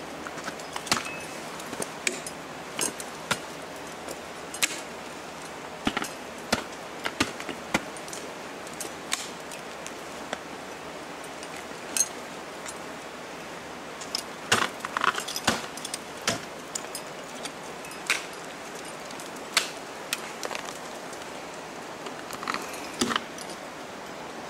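Ice climbing gear in use: ice axes and crampons striking the ice and metal hardware clinking. It is a string of sharp, irregular knocks and clinks, bunched more tightly in a couple of spots, over a steady background hiss.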